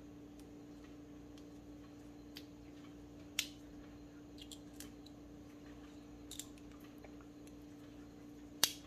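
Fingers opening supplement capsules and rubbing the powder out over bowls of dry cat food: a few sharp clicks, two of them louder, and scattered faint ticks over a steady low hum.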